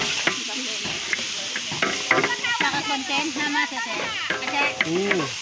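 Food sizzling and frying in a pan while it is stirred, a steady hiss with scraping clicks, and people's voices chattering over it from about two seconds in.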